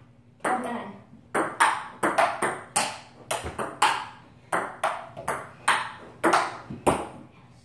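Ping pong rally: the ball clicking off the paddles and the table in quick alternation, about two to three hits a second, starting with the serve about half a second in.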